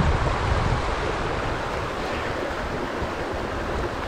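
Fast-flowing river rushing over shallow rapids in a steady wash of noise, with wind buffeting the microphone as a low rumble that is strongest in the first second.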